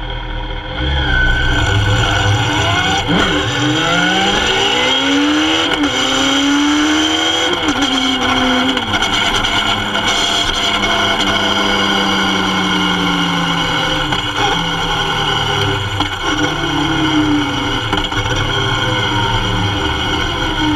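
Kawasaki Z750's inline-four engine pulling away and accelerating, its pitch climbing and dropping back at each upshift, then running steadily and falling as the bike slows. Wind and road noise mix in, heard close to the engine.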